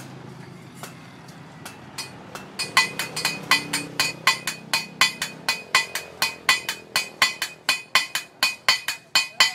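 Hand hammer striking steel on an anvil in forging, a fast, even run of about four blows a second, each with a metallic ring, starting a few seconds in. Before it there are only faint, scattered taps over the low hum of a passing vehicle.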